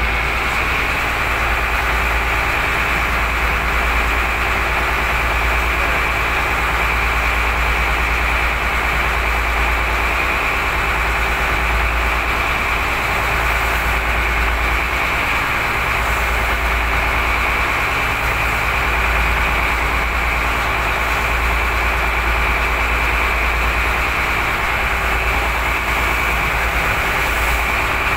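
A motor boat's engine running steadily while underway, a constant low rumble with a rush of water and wind over it.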